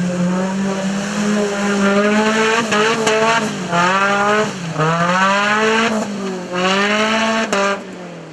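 Off-road race vehicle's engine revving hard under load. The pitch climbs and falls again several times as the throttle is worked, with short lifts in between.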